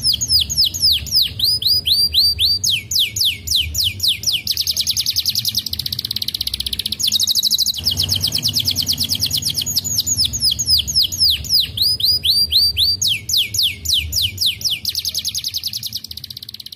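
Domestic canary singing a loud, continuous song of rapid descending whistled notes. It breaks into very fast trills about six seconds in and again near the end.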